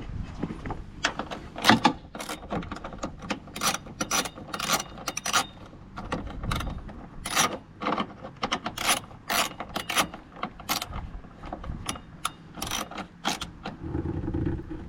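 Hand ratchet clicking in short, irregular runs of strokes as a 10 mm bolt is driven and tightened.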